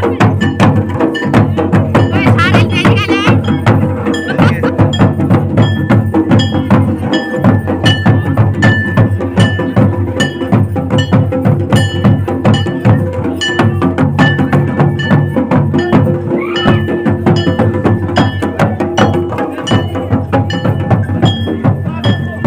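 Live traditional Pahari harul folk music: drums beating a steady rhythm with short ringing metallic strikes over it.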